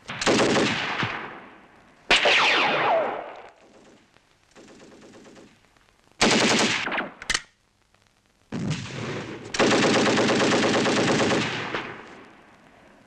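Several bursts of automatic gunfire, some short and one much longer near the end, each a rapid string of shots that stops suddenly.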